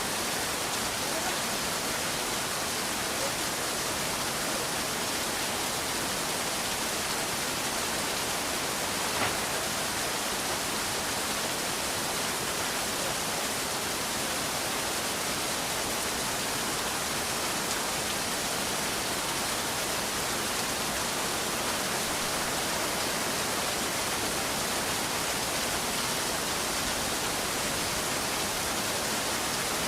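Steady rain falling as an even, unbroken hiss, with a single faint tick about nine seconds in.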